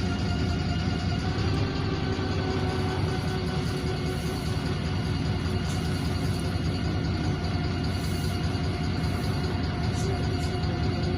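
Inside a NefAZ 5299 city bus on the move: its Cummins ISBe diesel engine running with a steady low rumble of engine and road noise, and a thin, steady whine over it.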